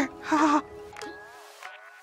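Short electronic music sting: held tones with warbling up-and-down glides and a rising glide, fading away.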